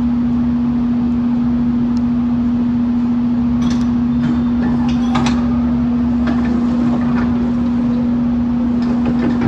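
Steady machinery hum at one low pitch, with a rumble beneath it. A few clicks and knocks come about four to five seconds in, and again near the end.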